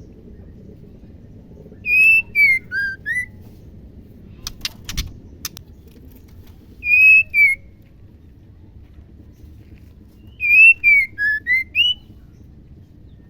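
Female white-rumped shama whistling: three short phrases of clear, slurred notes that fall and rise in pitch, with a few sharp clicks in the middle.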